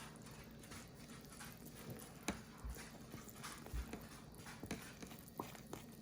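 A whisk stirring thick cookie dough in a mixing bowl: faint, irregular clicks and knocks as it strikes the bowl, with the soft squish of the stiffening dough.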